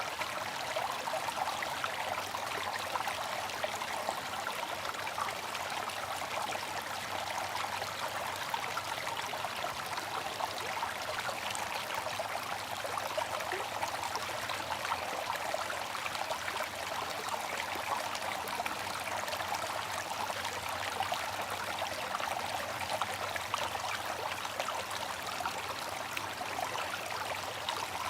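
Bamboo water fountain running: a steady, unbroken trickle and splash of flowing water, bright and hissy with little low rumble.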